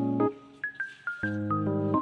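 Background music: keyboard chords that start and stop, with a few short higher notes between them.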